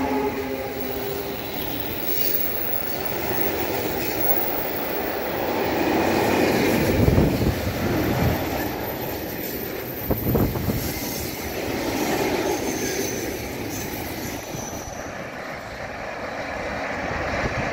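Freight train of tank wagons rolling past behind an SŽ class 363 electric locomotive: steady rolling and rattling of steel wheels on rail, with a few heavy thuds from the wheels and a faint wheel squeal on the curve. The tail of the locomotive's horn dies away about a second in.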